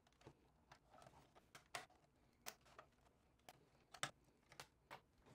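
Near silence broken by faint, scattered small clicks and taps, about a dozen over a few seconds, as fingers handle and press at the edge of a router's case.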